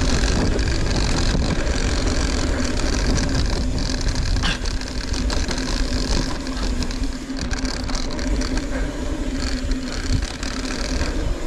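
Mountain bike riding a dirt trail: a steady rumble of tyre noise and wind on the microphone, with frequent clicks and rattles from the bike over rough ground and a steady low hum.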